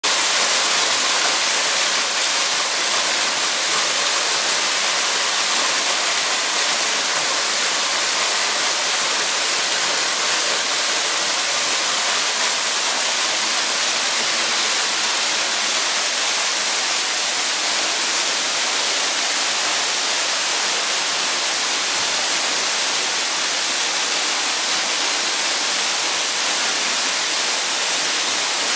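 Waterfall: a steady, unbroken rush of falling water, heavy on the high hiss.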